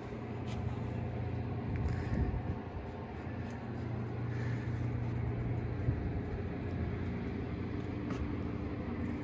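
A steady low motor rumble with a few faint ticks.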